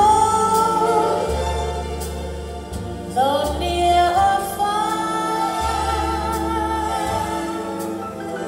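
A vocal music track with long held sung notes over a steady bass line, played back through a Bose S1 Pro portable PA speaker.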